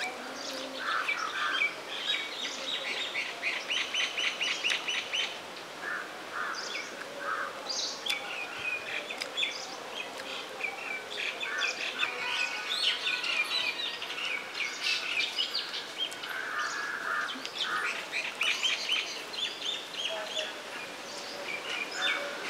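Several birds chirping and trilling, their quick calls overlapping without a break.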